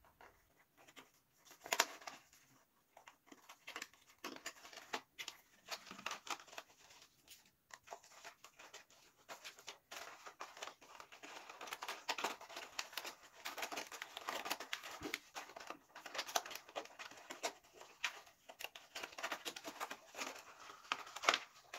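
Thin clear plastic orchid pot crinkling and crackling as hands flex it and work the roots free through its holes, with rustling of bark and substrate. The crackles are sparse at first and come thicker in the second half.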